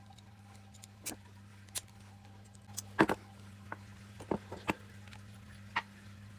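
Scattered clicks and light knocks of small brake master cylinder parts being handled and set down on a workbench, the loudest a double knock about three seconds in, over a steady low hum.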